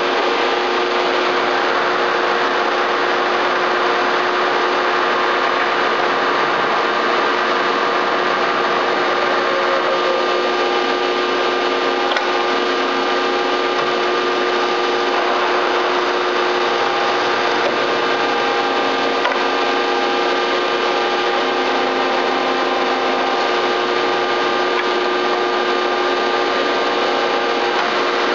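Large Bullard CNC vertical turning lathe running under power: a steady machine hum with several constant tones over an even hiss.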